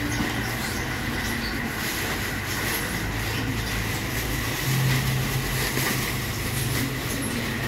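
Steady low rumble of road traffic, swelling briefly about five seconds in, with a faint steady high hum.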